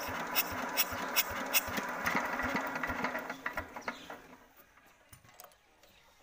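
Usha single-cylinder diesel engine turning over by hand with a regular knock about two and a half times a second, then running down to a stop about four seconds in without catching: the starting problem. Faint metallic clicks of a spanner on the injector nozzle follow near the end.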